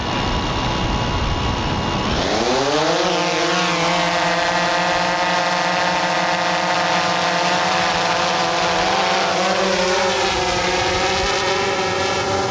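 Quadcopter drone's propellers spinning up about two seconds in, the buzz rising in pitch, then holding a steady multi-tone buzz as it lifts off and hovers. The pitch shifts a little near the end as it climbs.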